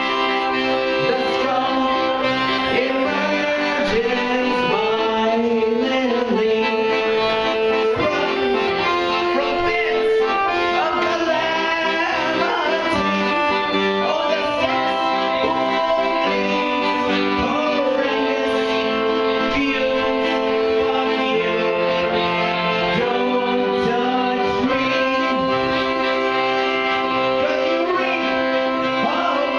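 Chromatic button accordion playing held, shifting chords while a man sings over it: a death polka song.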